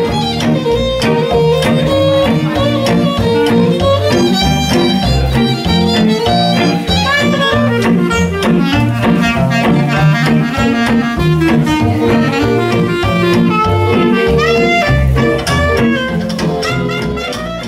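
Live band music: clarinet, fiddle, acoustic guitar and upright bass playing an up-tempo tune over a steady bass beat. The sound fades out near the end.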